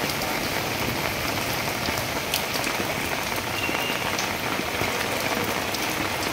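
Heavy rain falling steadily onto flooded standing water, an even hiss with a few sharper drop clicks.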